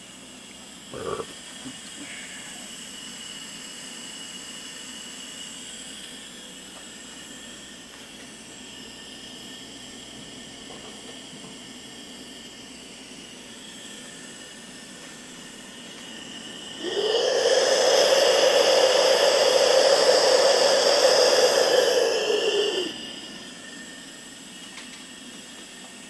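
Propane/MAPP gas torch firing into a homemade #10-can forge, a steady hiss. A click comes about a second in, and about two-thirds of the way through a much louder rushing hiss swells in, holds for about six seconds, then drops away.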